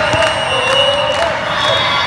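Din of a crowded indoor volleyball tournament: many voices and cheering, with sharp smacks of balls being hit. Two long whistle tones of different pitch sound, one ending about a second in and a higher one starting near the end.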